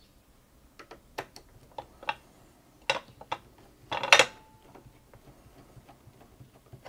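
Scattered light plastic clicks and ticks as a hand works the front controls of a Janome 1600P sewing machine, with two louder clacks about three and four seconds in.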